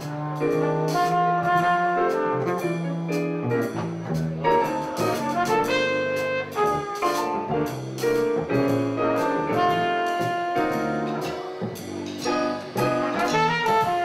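A small jazz band playing: electric keyboard, plucked upright bass and drum kit, with long held melody notes over a walking bass line.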